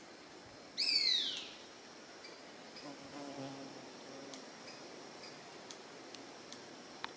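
A single loud whistled bird call that slides down in pitch, about a second in, over a steady high insect drone; a shorter falling chirp comes near the end.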